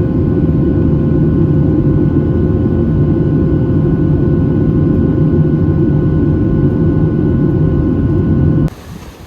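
Loud, steady engine drone with a constant low hum, cutting off suddenly near the end.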